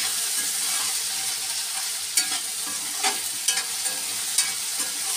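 Potato pieces and onion sizzling in hot oil in a metal kadai, with a steady hiss and a metal spatula now and then scraping and clinking against the pan as they are stirred.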